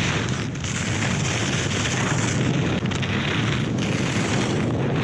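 Wind buffeting an action camera's microphone during a fast ski run, a loud steady rush with low rumble, mixed with the hiss of skis on the snow.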